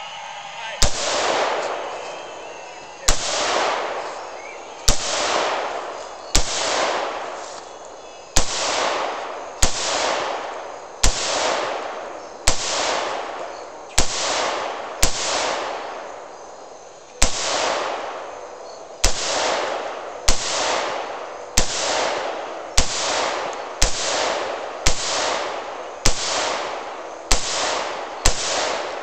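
Stag Arms left-handed AR-15 rifle fired shot by shot, about two dozen single sharp reports a second or two apart, coming faster near the end. Each shot is followed by a long echoing tail.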